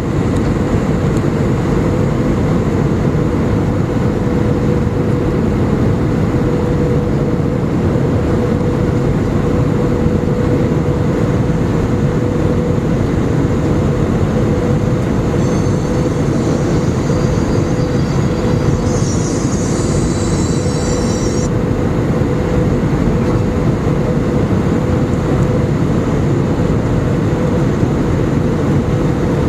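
Steady cabin noise inside an Airbus A319 airliner: engine and airflow rumble with a steady hum, and a fainter high hiss that comes and goes past the middle.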